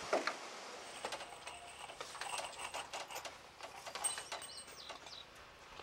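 Scattered light knocks and clicks of hands-on work on a wooden roof frame, with a sharper knock at the start. A few short, high chirps sound about four seconds in.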